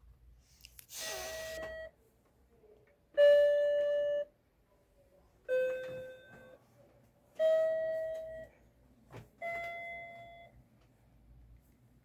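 Five electronic chime tones, one about every two seconds, each held for about a second and fading, at slightly different pitches.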